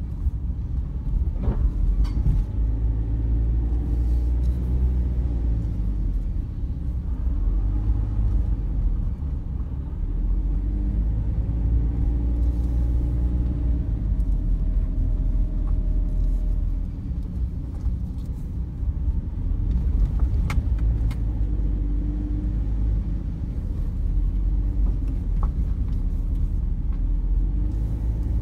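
Car driving along a mountain forest road: steady low road and engine rumble, the engine note drifting up and down a little with speed, and a few brief sharp ticks.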